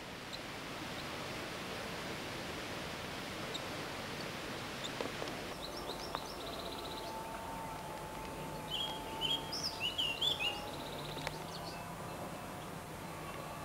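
A steady rushing hiss that stops suddenly about five seconds in, giving way to a quieter outdoor background with a faint steady hum. A little past the middle comes a quick run of short, high bird chirps, the loudest sounds.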